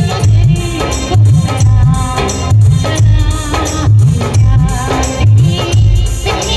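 Loud Indian band music over a truck-mounted DJ loudspeaker rig: a steady beat of deep bass thumps, about three every two seconds, with tambourine-like shaker strokes and a melody line on top.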